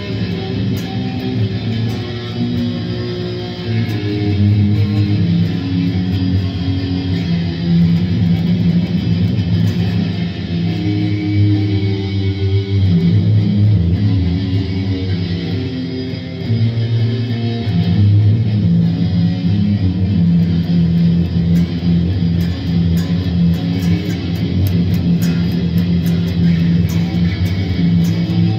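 Electric guitar playing a riff of low notes, many held for a second or more, with higher notes over them.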